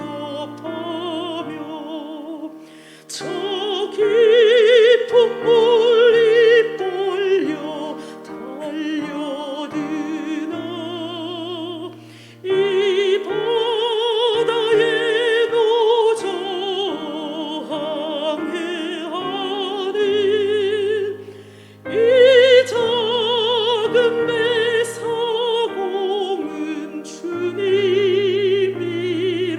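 A hymn sung solo in a classical, operatic style with wide vibrato over sustained instrumental accompaniment, the voice breaking briefly between phrases.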